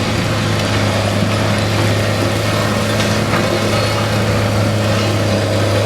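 Heavy vehicle engine running steadily, a constant low drone with no change in speed.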